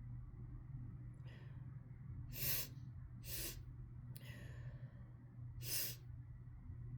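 A person sniffing and snorting sharply through the nose: five short breathy bursts, the loudest about two and a half seconds in and again near the end, with a longer softer exhale in between.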